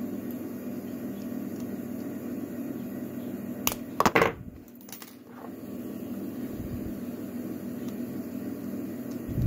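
Steady low background hum, broken about four seconds in by a quick cluster of sharp metallic clicks from the lock and tools being handled, with a dull thump right at the end.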